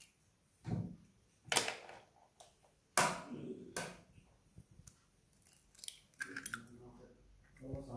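A few sharp knocks and clicks of an egg being tapped and cracked against a glass mixing bowl, then the shell pulled apart to drop the egg in near the end.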